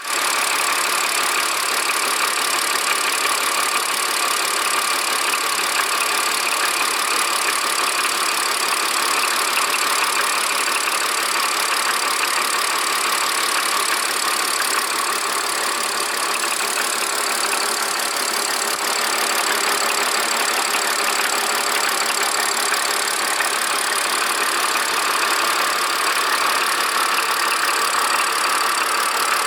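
BMW N52B30 3.0-litre straight-six engine idling steadily, with an extraneous noise that the owner is trying to pin down.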